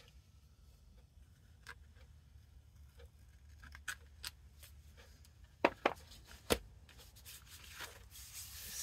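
Paper scissors snipping and being handled: a few scattered sharp clicks, a quick pair of them and then the loudest one past the middle, with paper rustling near the end.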